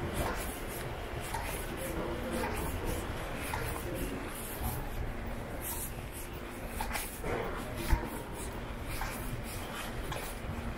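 Ambience of a bus-terminal concourse: a steady low hum with faint distant voices and scattered footsteps, and a single thump about eight seconds in.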